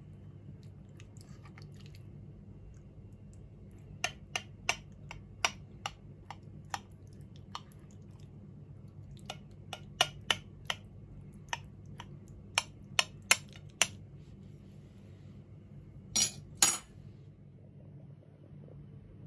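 Cutlery clinking against dishes in short, irregular taps, with two louder clinks near the end, over a faint steady hum.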